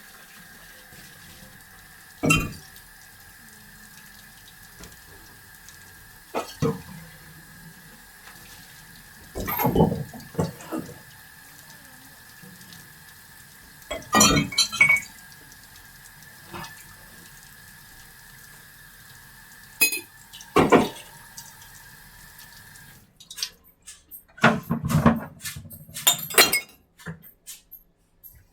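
Intermittent household knocks and clatter, about half a dozen separate clusters with a quick run of clicks near the end, over a faint steady hum that cuts off a little before the end.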